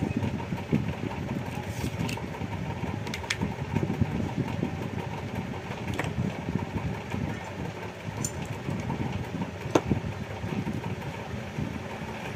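Steady low engine-like rumble in the background, with a few sharp clicks scattered through it as wires and a plastic bulb holder are handled.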